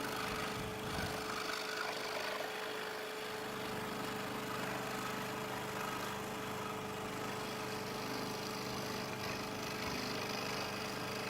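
Steady, faint machine hum with a constant whine, holding an even level throughout.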